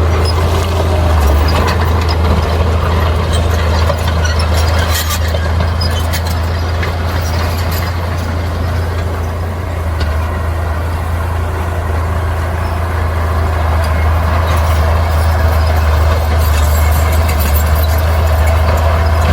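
Bulldozer's diesel engine running with a steady low drone, with short squeaks and clatter from the tracks or rock now and then, most around five seconds in and near the end.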